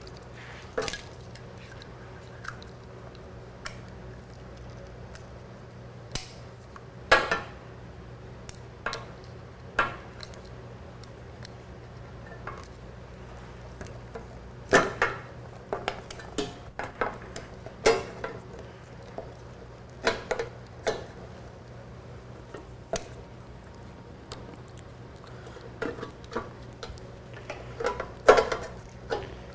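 Scattered metallic clinks and knocks, some in quick clusters, from parts and tools handled while an electronic control module (ECM) is plugged in and fitted onto studs on a motorcycle's battery box, over a steady low hum.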